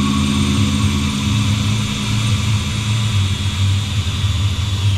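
Electric drill running steadily under load, boring a bolt hole through the steel truck frame.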